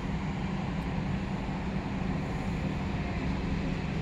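Steady low drone of an engine running at a constant speed, unchanging throughout.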